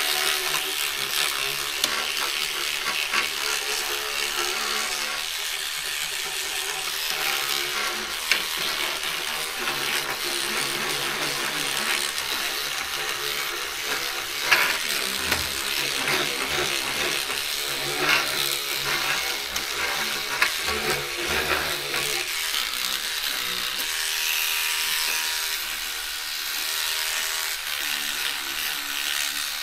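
Small electric cleaning brush running and scrubbing textured plastic, a steady motor whir with the bristles rasping on the surface, broken by a few short sharp knocks.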